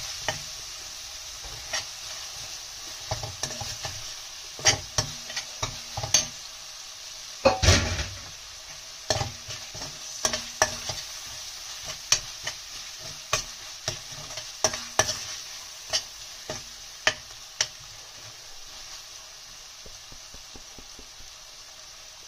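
Metal spoon stirring and scraping an onion-tomato masala frying in oil in a non-stick kadhai, with a steady sizzle under irregular clicks and knocks of the spoon against the pan. Near the end the stirring stops and only the sizzle goes on.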